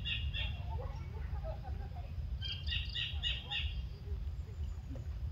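A duckling peeping: a run of rapid high peeps at the start and another about halfway through, over a steady low rumble.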